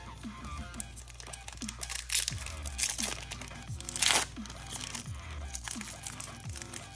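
A Topps Chrome trading-card pack's foil wrapper being torn open and crinkled by hand, in short rips with the loudest about four seconds in.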